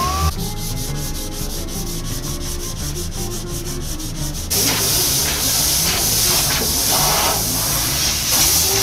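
Sanding on a repaired car body panel: an even, rhythmic scratching that turns into a louder, harsher hiss about four and a half seconds in.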